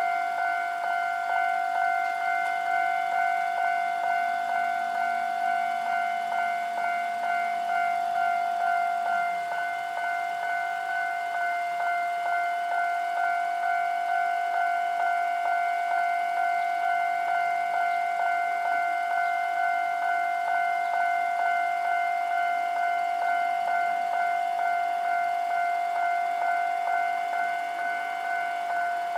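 Japanese railroad level-crossing alarm ringing: an electronic bell repeating a single ding about twice a second without a break, the warning that the crossing is closed for an approaching train.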